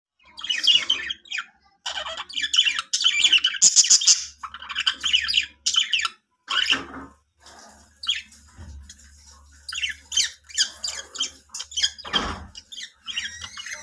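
Budgies chirping and squawking in rapid, chattering bursts with short pauses between them.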